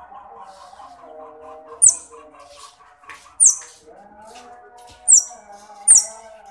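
Baby otter giving four sharp, high-pitched chirps, each falling in pitch, spaced about a second or so apart.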